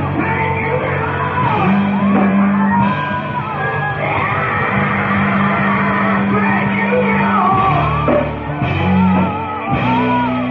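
Live gospel band playing with singing: keyboard and electric guitar over held low notes, with a voice singing wavering lines above.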